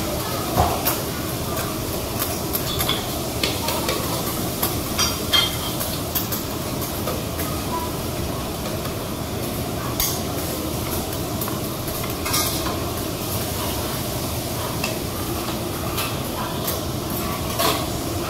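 Bean sprouts sizzling on a steel teppanyaki griddle while metal spatulas stir and toss them, with scattered clicks and scrapes of the spatulas against the hot plate.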